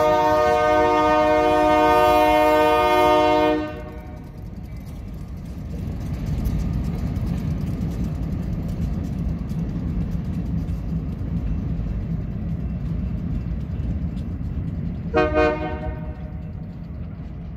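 Great Lakes Central diesel locomotive air horn sounding one long blast that cuts off about three and a half seconds in, followed by the steady low rumble of the locomotives' diesel engines, and a short second blast on the horn near the end.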